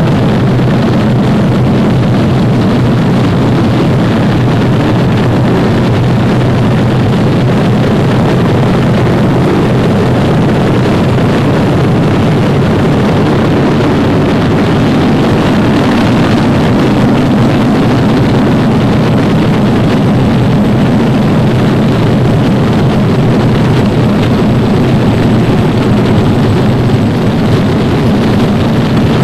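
B-25 Mitchell bomber's twin radial piston engines running steadily, a constant low engine noise with no change in pitch.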